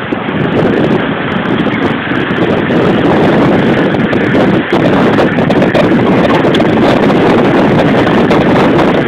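Loud, steady rushing noise of wind buffeting a phone microphone, mixed with street traffic.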